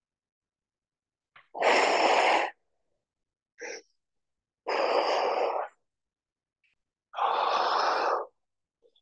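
A man breathing out hard three times, about a second each, with the effort of pressing dumbbells up while lying on a stability ball. There is a short quick breath between the first two.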